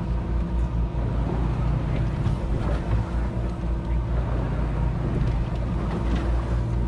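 A fishing boat's engine running steadily, a low, even hum.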